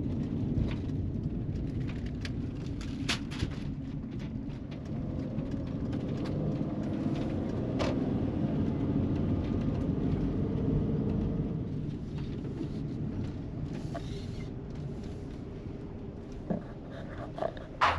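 Steady low vehicle rumble with scattered light clicks, and a few sharper knocks near the end.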